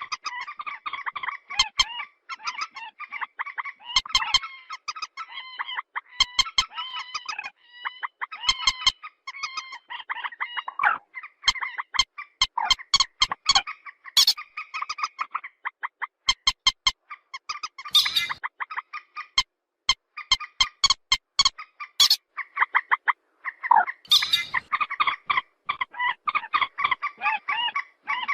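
Swamphen calling ('trích ré'): rapid runs of clicking notes mixed with nasal squawks and honks, going on without a break, with two louder harsh cries later on.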